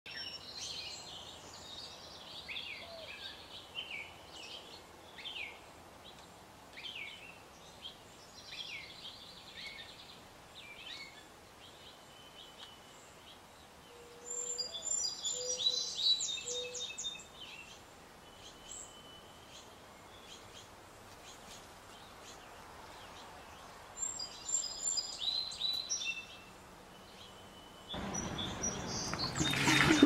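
Small birds chirping and calling, with a few louder bursts of song. In the last two seconds the shishi odoshi's bamboo tube tips over and its water pours out with a splash, and a sharp knock from the bamboo lands at the very end.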